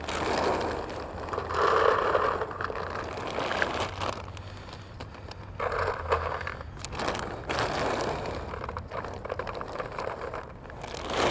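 Paintballs being poured into a paintball hopper, rattling against each other and the plastic shell in several surges of pouring.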